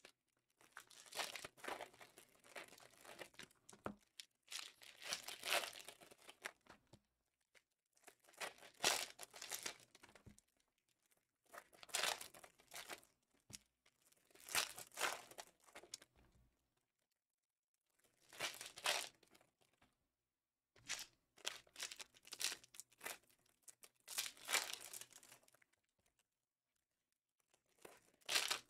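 Plastic-foil wrappers of Prizm football card packs being torn open and crinkled, one pack after another. This comes in about nine short bursts of a second or two, a few seconds apart.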